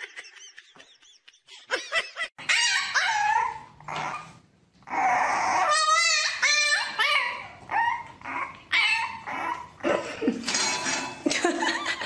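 French bulldog puppy yipping and whining in a string of short, high calls that rise and fall, with a quick warbling yelp about six seconds in.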